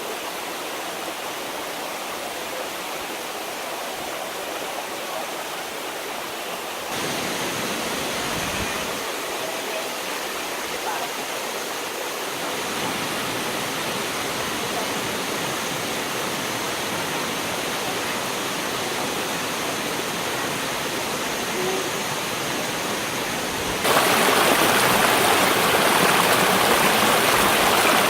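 Waterfall rushing steadily over rocks. The loudness steps up abruptly about seven seconds in and again about four seconds before the end, where it is loudest.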